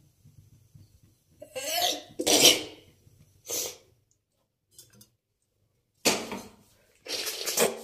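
A woman sneezing and coughing in about five short bursts, the loudest about two seconds in. She links these fits to the nose irritation she gets on waking early.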